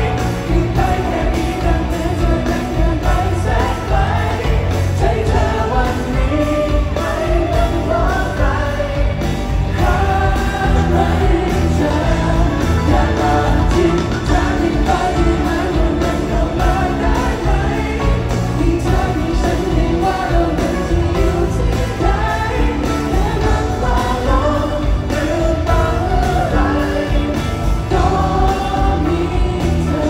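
Live pop song played through an arena sound system, with a band, a steady beat and singing throughout.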